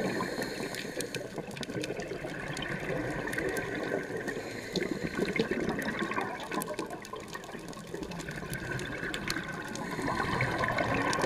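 Underwater sound through a camera housing on a scuba dive: the rushing of a diver's exhaled regulator bubbles, swelling again near the end, over a steady crackle of sharp clicks.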